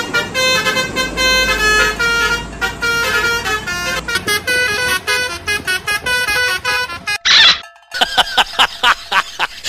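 Basuri telolet bus horn, a multi-tone musical horn, playing a quick tune of stepped notes. About seven seconds in, a short rising sweep cuts it off, followed by a brief gap and more choppy pitched notes.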